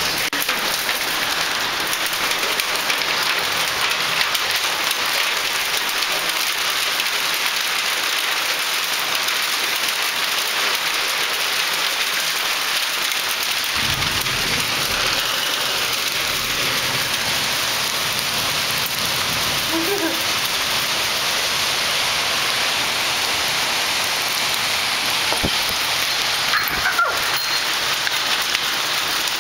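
Hailstorm: hail and heavy rain falling in a steady, dense hiss. A deeper rumble joins about halfway through.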